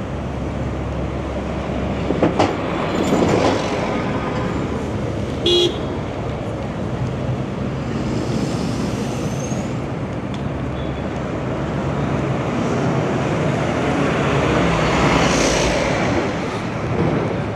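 City street traffic going by with a steady rumble, swelling as vehicles pass, and a short vehicle horn toot about five and a half seconds in.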